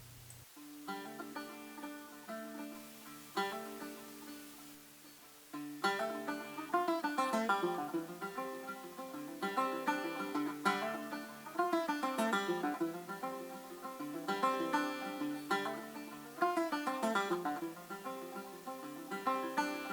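Background music: banjo-led bluegrass-style tune with plucked strings, getting fuller and louder about five and a half seconds in.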